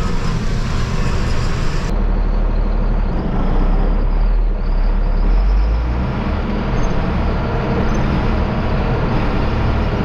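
Tractor engine running steadily with a deep drone as it pulls a grain cart. The sound turns duller about two seconds in.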